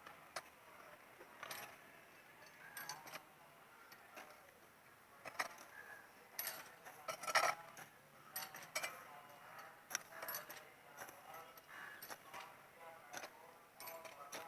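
Irregular light clicks and clinks, a few louder ones about halfway through, over faint background voices.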